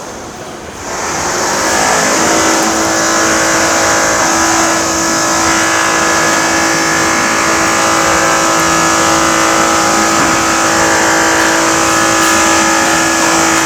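A loud, steady mechanical drone with a constant hum and hiss. It swells up about a second in and then holds.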